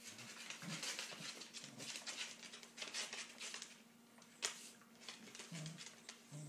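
Dogs scuffling in a play fight, with short low growls now and then and one sharp click about four and a half seconds in.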